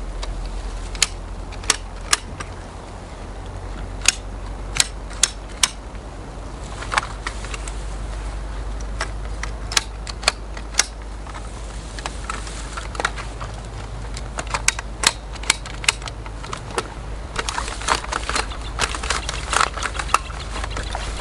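Sharp metal clicks and clacks from a folding metal-framed fishing chair being set up, its legs being adjusted and locked higher, in scattered bunches with a busier run near the end. A steady low rumble underneath.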